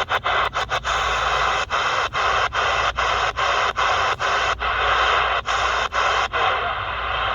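Shortwave static hiss from the C Crane CC Skywave SSB portable receiver, cut by short silent gaps about two or three times a second as the radio is tuned step by step through the band. The gaps stop near the end and the hiss runs on steadily.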